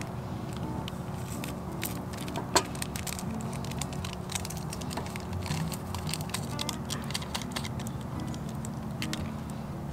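Soft background music with low notes that change in steps, over scattered light clicks and clatter, with one sharp knock about two and a half seconds in.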